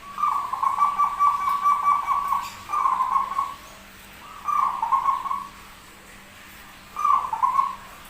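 Zebra dove (perkutut) cooing: four rapid, rattling coo phrases, the first and longest lasting about two seconds, then three shorter ones with pauses between. This is a bird with an unusual-sounding song.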